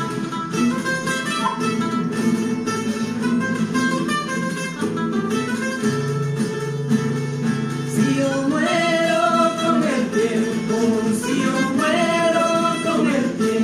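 A carnival song played on a mandolin and an acoustic guitar, plucked and strummed; about eight seconds in, voices come in singing over the strings, in two phrases.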